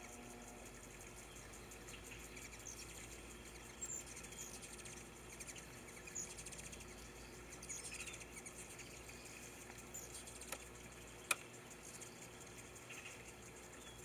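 Hummingbirds giving short, high chirps every second or two, over a faint hiss of water trickling into a shallow tray bird bath. One sharp click sounds late on.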